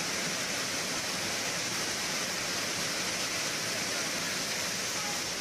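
Muddy floodwater rushing down a street in a torrent, one steady, unbroken rush of water noise.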